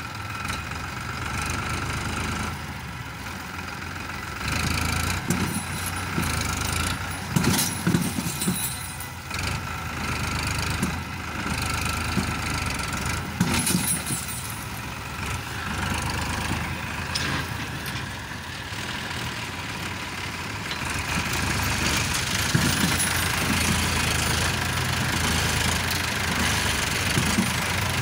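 Farmtrac Champion tractor's diesel engine running and revving, trying to pull out of deep mud. The engine note swells and falls in several surges.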